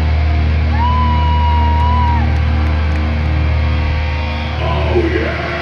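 Heavy metal band playing live, over a steady low bass drone. Under a second in, a high note is held for about a second and a half. Near the end a pitch slides down and back up.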